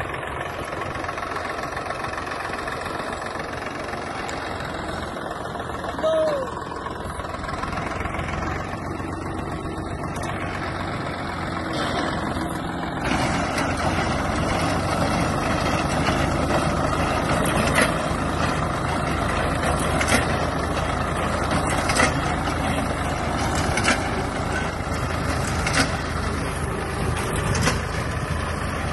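Swaraj 744 FE tractor's three-cylinder diesel engine running steadily under load while its front-mounted reaper binder cuts the crop, getting louder about halfway through. Sharp clicks come about every two seconds in the second half.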